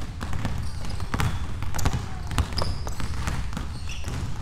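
Several basketballs being dribbled on a wooden gym floor, an irregular run of overlapping bounces.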